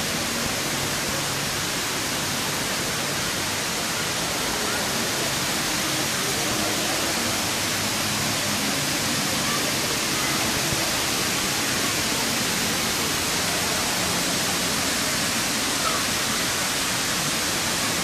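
Indoor waterfall: water sheeting down a tall wall, giving a steady, even rush.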